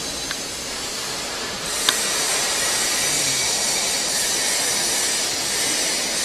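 Steady hissing factory workshop noise, louder and brighter from about two seconds in, with a few sharp clicks.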